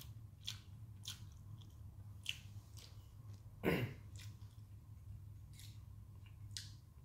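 A person chewing a mouthful of instant noodles, with wet mouth clicks and smacks scattered through, and one louder, falling breath or mouth sound a little past halfway.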